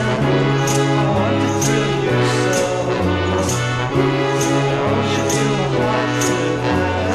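Late-1960s rock song played from a vinyl record, with a steady beat, a bass line stepping between notes, and a cymbal hit about once a second.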